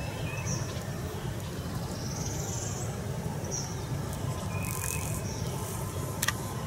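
Spring woodland ambience: short, high chirps of small birds every second or so over a steady low rumble, with one sharp click near the end.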